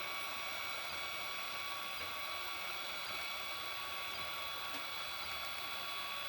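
3D printer running while printing a bridge: a steady fan hiss with several constant high tones.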